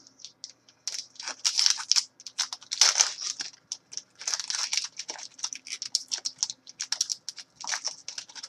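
Trading cards handled by hand: a quick, irregular run of flicks, taps and scrapes of card stock as cards are slid, flipped and set down.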